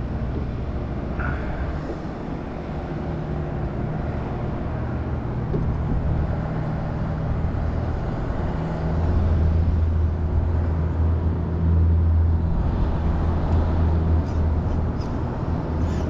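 A low, steady engine drone that grows louder about halfway through, over a faint even background hiss.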